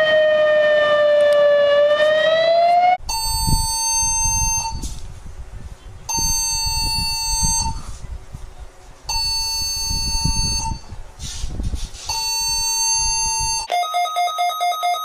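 Electronic emergency-alert tones. First comes a siren-like wail that sags and then rises in pitch. It cuts off about three seconds in, and four long alarm beeps follow, each about a second and a half, over a low rumble. Near the end a fast pulsing beep begins.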